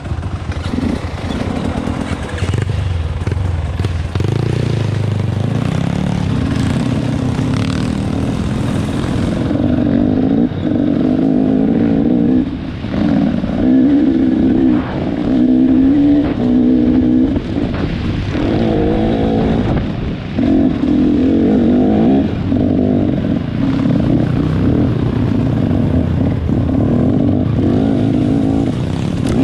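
Off-road trail motorcycle engine running under load, revving up and down with the throttle, with several brief drops in revs along the way.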